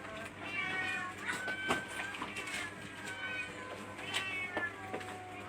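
Several domestic cats meowing over one another, one call after another, at feeding time.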